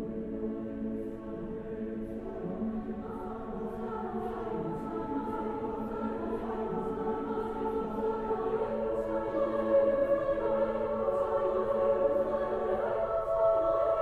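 Large mixed choir of men's and women's voices singing slow, sustained chords that swell louder over the second half.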